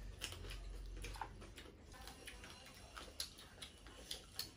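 Faint, irregular small clicks and smacks of several people eating with their hands: chewing and lip smacking, a few every second, over a low hum.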